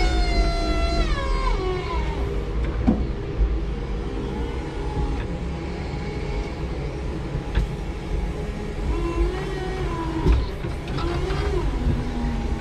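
Electric forklift's motor whining, then sliding down in pitch and dying away about two seconds in, leaving a low rumble from the truck with a few sharp knocks. A fainter whine rises and falls again near the end.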